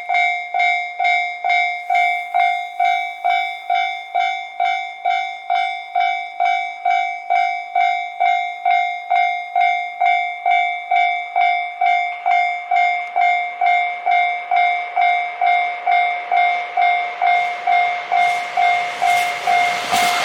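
Japanese level-crossing warning bell ringing steadily, about two dings a second. In the last couple of seconds the noise of the approaching KiHa 261 series diesel express rises under the bell.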